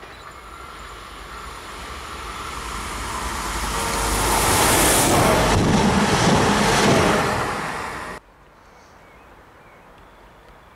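A passenger multiple-unit train approaching and passing close by: its rolling, rushing noise grows steadily louder over about four seconds, stays loud as the cars go past, then cuts off suddenly about eight seconds in.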